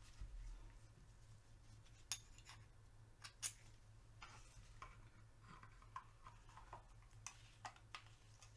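Faint, scattered clicks and taps of small metal parts of a Tec-9 pistol being handled during reassembly, with near silence between them.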